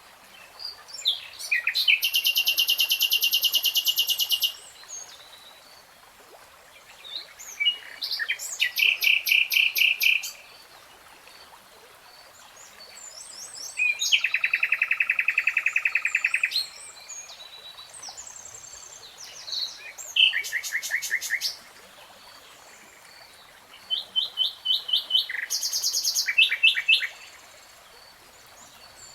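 Nightingale singing: five phrases of fast, rapidly repeated notes and trills, each a few seconds long, separated by pauses of a few seconds.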